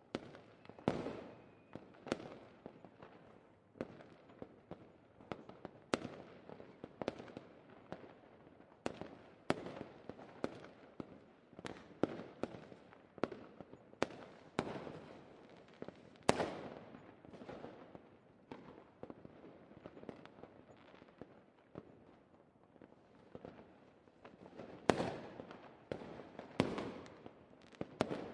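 Fireworks going off: a string of sharp bangs at irregular intervals, about one or two a second, each with a trailing echo, with a few louder reports near the end.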